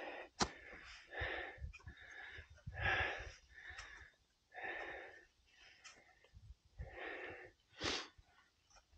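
A climber breathing hard on a steep ascent: loud, rasping breaths about every two seconds. A couple of sharp clicks fall between the breaths.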